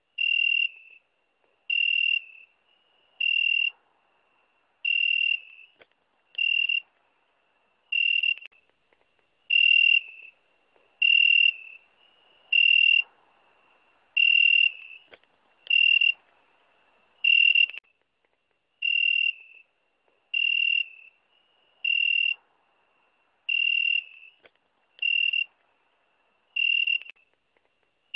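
A zrikavac, a long-antennaed cricket-like insect, singing: a single clear, whistle-like chirp about half a second long, repeated steadily about every second and a half.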